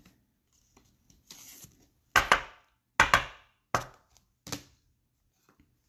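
Trading cards and a clear plastic card holder handled on a tabletop: a short rustle of plastic, then four sharp taps under a second apart as they are set down.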